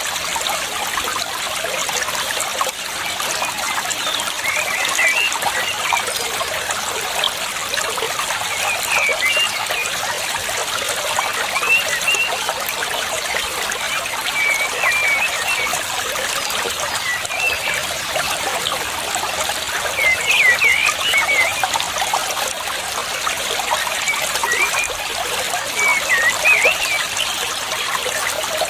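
Water trickling steadily, with short bird chirps now and then, several clustered about a fifth of the way in and near the end.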